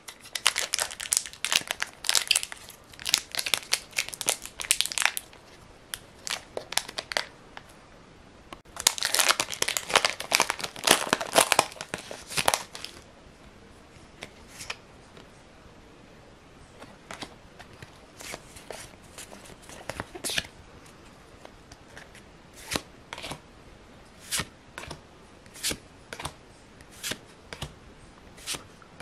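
Pokémon TCG booster pack wrappers crinkling and being torn open, in two long spells of dense crinkling. After them come sparse soft ticks, about one a second near the end, as cards are handled one by one.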